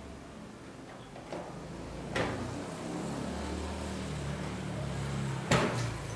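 A few sharp knocks and clunks, the loudest about five and a half seconds in, over a low steady hum that sets in about halfway through.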